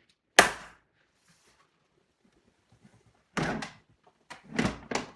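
A single sharp thunk about half a second in, then a cluster of three or four heavier knocks near the end: hard parts of the stand mixer being handled and set in place.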